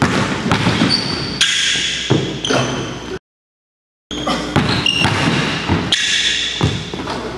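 Basketball sneakers squeaking on a hardwood gym floor, with a ball bouncing and footfalls thudding during one-on-one play. The sound cuts out completely for about a second midway.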